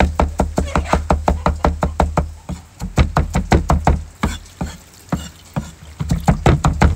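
Steel cleaver chopping shallots and garlic on a wooden chopping block: rapid knocks, about five a second, that slow and grow irregular in the middle before speeding up again near the end.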